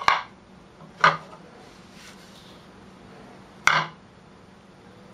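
Dishes clinking as ingredients are tipped into a ceramic mixing bowl: three short knocks, one at the start, one about a second in and one nearer the end.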